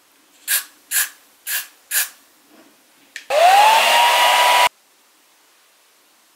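Four short hisses from an aerosol hairspray can, about half a second apart. About three seconds in, a handheld hair dryer switches on: its motor whine rises quickly and holds steady under a loud rush of air for about a second and a half, then cuts off suddenly. It is the loudest sound here.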